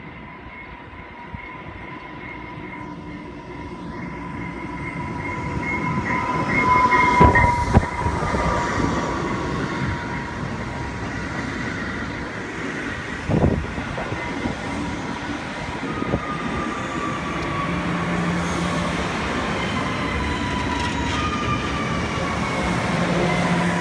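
Electric multiple-unit commuter train (Bombardier MR-90) pulling into a station and rolling past, growing louder as it nears. There is a single clunk partway through, and falling whines as it brakes.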